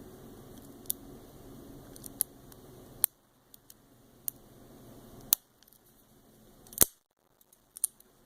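Sharp metallic clicks from a lock pick and tension wrench single-pin picking the six-pin removable core of a Best SFIC padlock: about seven separate clicks a second or so apart, the loudest almost seven seconds in.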